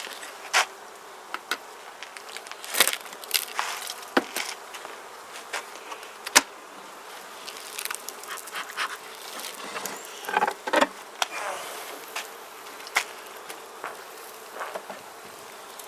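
Honeybees buzzing steadily around an open-air beehive, with scattered sharp clicks and knocks from handling throughout.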